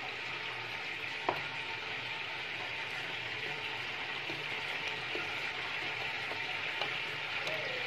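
Cut potato strips being tossed and mixed by hand with salt and arrowroot powder in a bowl: a steady rustling hiss, with a single knock about a second in.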